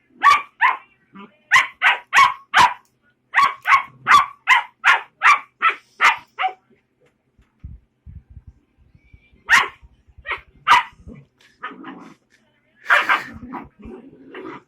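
Puppy barking in high-pitched yaps: a quick run of about fifteen short barks, roughly three a second, then a pause and a few more scattered barks near the end.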